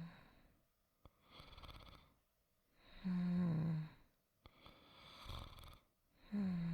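A person's soft snoring in a slow, even rhythm, about one snore every three and a half seconds. Each is a short, low snore that falls slightly in pitch, followed by a quieter breath out.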